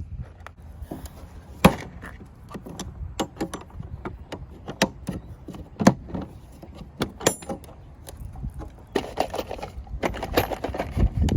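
Hard plastic Packout organizer being knocked about and rattled: irregular sharp knocks and clicks, the loudest about two and six seconds in.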